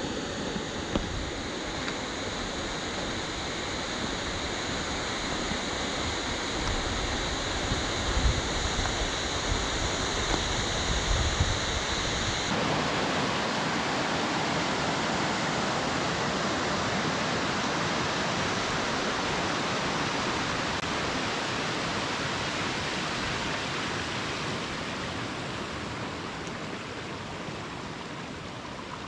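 Mountain stream rushing down a steep boulder cascade, a steady even rush of water. The sound changes abruptly about twelve seconds in: before the change it is thinner, with some low knocks, and after it the rush is fuller and even.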